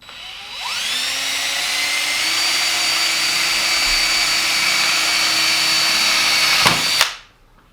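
Electric drill spinning up with a rising whine, then running at a steady high pitch for about six seconds while drilling through the seat's metal frame. Near the end there is a sharp click, and the motor winds down quickly.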